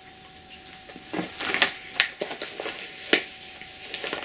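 Handling noise from a cross-stitch piece and its project materials being moved about: rustling and scraping, with a few sharp clicks about two and three seconds in.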